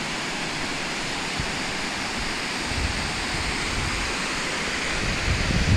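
Steady rush of a mountain stream and small waterfall in the gorge below. From about halfway through, low gusts of wind buffet the microphone, strongest near the end.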